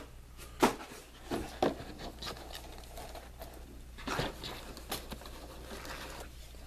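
Small sealed cardboard card boxes being tipped over, slid and stacked on a tabletop: a series of light knocks and scrapes, with a cluster of them about four seconds in.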